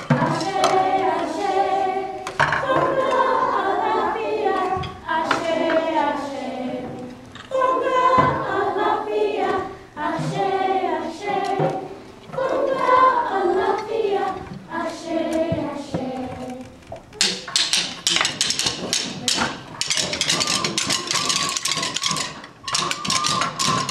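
A group of children and adults singing a song together in phrases. About two-thirds of the way in the singing gives way to a fast, dense clatter of many sticks being tapped, with one held sung note under it near the end.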